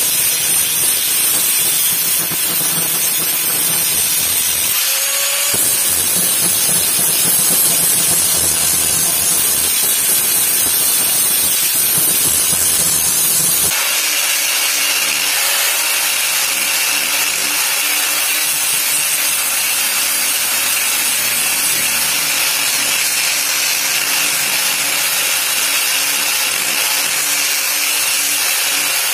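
Handheld angle grinder running steadily, its abrasive disc grinding the steel blade of an old knife being restored. The sound changes abruptly about fourteen seconds in, when a different, lighter-coloured disc is on the grinder.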